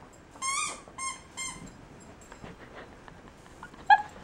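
A dog working her way out from under a towel: short high-pitched squeaks, three close together in the first second and a half and one short, sharper, louder one near the end, over faint rustling of the towel.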